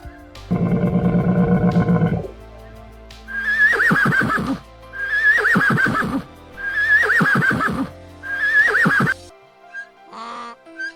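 A horse whinnying four times in a row, each whinny starting high and falling away with a shake, over background music. A low, drawn-out animal call comes before the whinnies.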